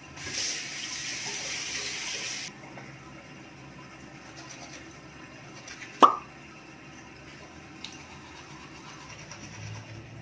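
Bathroom sink tap running for about two and a half seconds, then shut off abruptly. About six seconds in comes one sharp knock, the loudest sound, followed later by a faint click.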